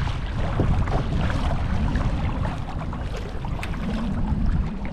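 Water splashing and lapping around a sea kayak under way, with wind rumbling on the microphone. A faint steady low hum comes in near the end.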